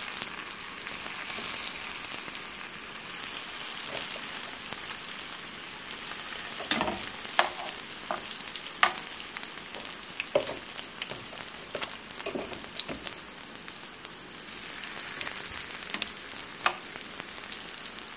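Vegetable lumpia frying in hot oil in a skillet: a steady sizzling hiss, with a few sharper pops and clicks scattered through it.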